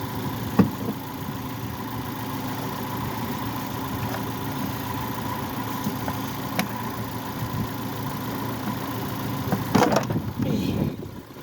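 Car engine idling steadily, with a few light clicks. A brief, louder noise comes near the end.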